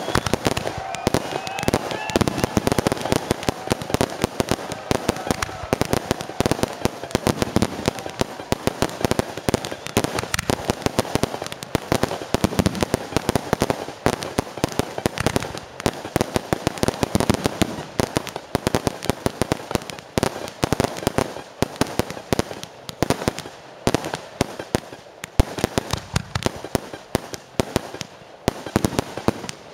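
Aerial firework shells from a professional display bursting in a rapid, unbroken stream of bangs and crackles.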